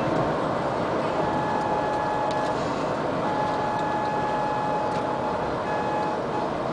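A thin, high steady tone that cuts in and out over road and engine noise inside the cabin of a 2010 Ford Explorer: an unexplained noise that shows up only after hours of highway driving, which the dealer took for the 100 km/h speed alarm but the owner says is not an alarm.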